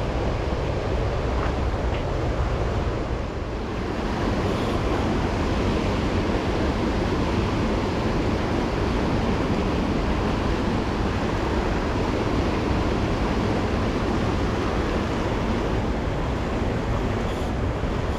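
Steady rushing of a high, fast-running river.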